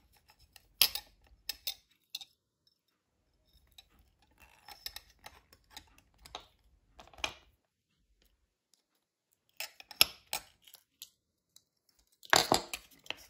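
Scattered small clicks and light taps of fine wire, a glass bead and small metal tubes being handled against a metal wind-chime piece while it is threaded by hand, with a louder handling noise near the end.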